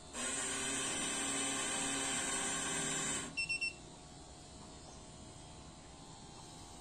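Sanitary napkin vending machine dispensing: its mechanism runs with a steady whir for about three seconds, then cuts off and gives three quick high beeps as the napkin drops into the lit collection slot.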